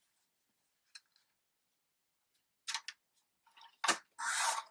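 Sheets of scrapbook paper being handled and laid into place: a faint tick, then brief rustles, a sharp tap and a short burst of paper sliding near the end.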